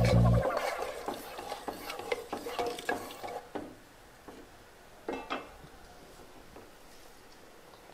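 A spoon stirring and scraping in a cooking pot of curry, with scattered clicks for the first few seconds and a single clink against the pot about five seconds in.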